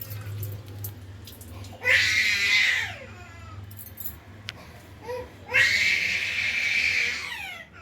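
A baby giving loud, high-pitched cries: two long ones about two and five and a half seconds in, each falling in pitch at its end, with a short one between. A steady low hum runs underneath.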